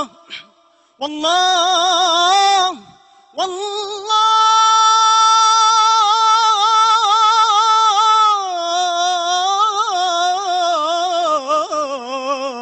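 A munshid chanting Islamic devotional praise (inshad), unaccompanied, stretching the words into long melismatic phrases: two short phrases with brief pauses, then a long note held steady with vibrato for about four seconds that winds into ornamented turns.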